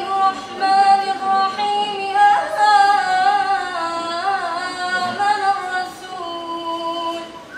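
A girl's voice chanting Quranic recitation in the drawn-out melodic style, with long held notes ornamented by wavering turns and a drop to a lower held note about six seconds in.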